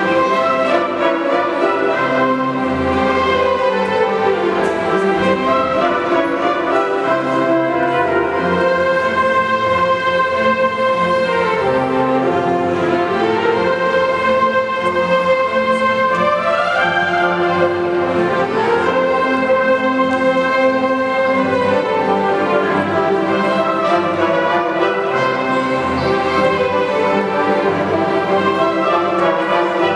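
Orchestra of strings, woodwinds, brass and timpani playing a military march, with runs of notes falling and rising in the middle.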